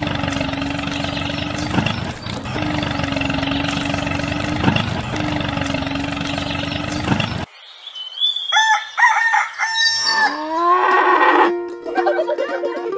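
Steady engine-like running of a toy mini tractor pulling a roller, which cuts off suddenly about seven and a half seconds in. Then a rooster crows among other farm-animal calls.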